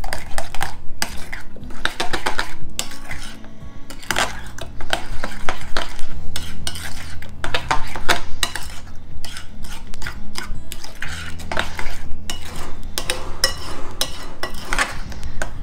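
Metal spoon stirring a thick fromage blanc and strawberry mixture in a glass bowl, scraping and clinking against the glass in quick, irregular strokes, with a brief lull about three seconds in.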